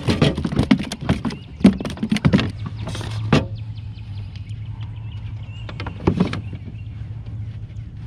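Knocks, rattles and thumps against the plastic hull of an Old Town Sportsman PDL 106 fishing kayak as a just-caught bass is landed and handled, thick for the first three and a half seconds, with another short clatter about six seconds in. A steady low hum runs underneath from about two seconds in, with faint bird chirps.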